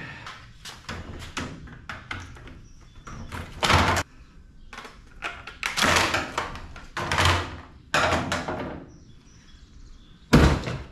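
Parts being pulled out and handled while a washing machine is stripped for scrap: a run of knocks and clatter with several heavier thunks and scraping strokes, the loudest one near the end.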